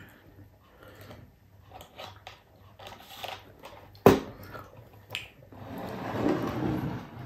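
Close mouth and handling sounds at a meal table: faint clicks, a sharp knock on the wooden table about four seconds in, then a couple of seconds of rough crunchy chewing noise near the end.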